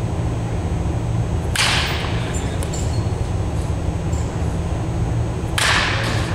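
Two swishes of a bat cutting through the air in swings, about four seconds apart, over a steady low hum.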